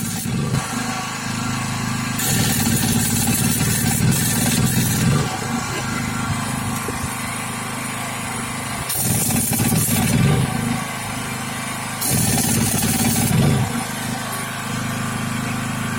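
A vehicle engine runs steadily with a low pulse. Louder spells of rushing noise come and go about 2, 9 and 12 seconds in.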